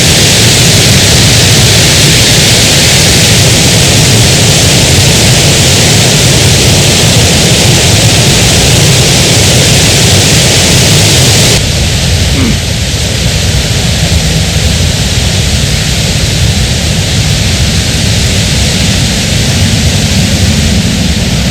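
Loud, steady rushing noise with no pitch, dropping abruptly in level and losing its hiss about halfway through.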